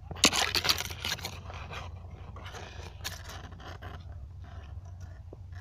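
Rustling and scraping noises, a quick run of them in the first second or so, then fainter scrapes.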